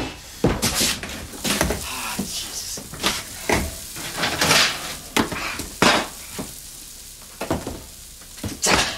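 Kitchen clatter: pots, dishes and cutlery handled, in a loose series of short knocks, clinks and scrapes.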